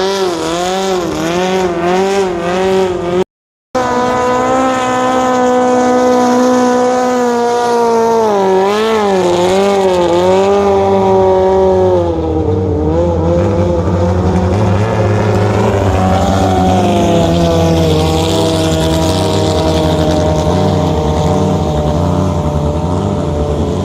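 Racing longtail boat engine running hard at high revs, its pitch wavering up and down, with a brief dropout a few seconds in. About halfway through the pitch falls and the engine settles into a lower, steady run with a heavy low rumble.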